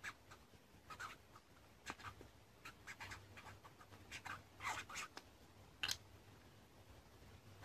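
Faint, irregular light taps and scratchy clicks of hand handling, a dozen or so scattered strokes with a cluster near the middle and one sharper tick near the end.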